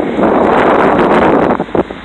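Wind buffeting the phone's microphone in loud, uneven gusts, dipping briefly about a second and a half in.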